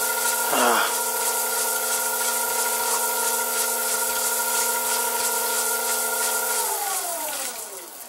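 Vintage Karger metal lathe running under a cut, a high-speed-steel tool turning a steel backing plate: a steady whine from the drive with the hiss of the cut over it, and a short louder burst about half a second in. Near the end the motor is switched off and the whine falls in pitch as the spindle spins down.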